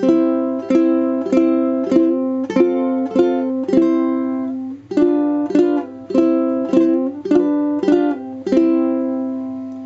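Islander tenor ukulele by Kanilea being strummed: a short run of chords, about two strums a second, with a pause near the halfway point, the last chord left to ring and fade. The tone is somewhat metallic.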